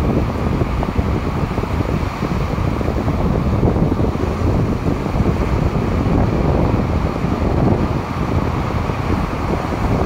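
Wind buffeting the microphone, a steady low rumble that flutters constantly, over the wash of breaking sea waves.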